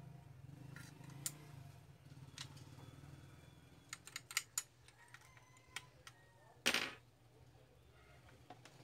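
Scattered sharp clicks and taps of plastic printer parts being handled, with a quick run of clicks about four seconds in and a short rustling scrape near seven seconds, over a steady low hum.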